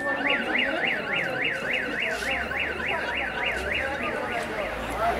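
Car alarm switching from a steady tone to a rapid warbling siren, about three to four rising-and-falling sweeps a second, which fades out near the end, over crowd chatter.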